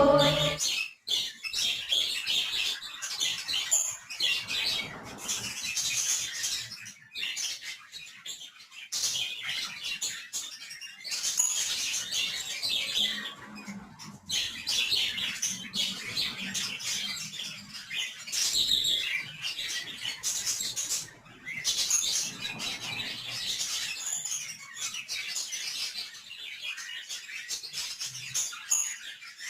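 Budgerigars chattering and warbling without a break, a dense run of high chirps and twitters.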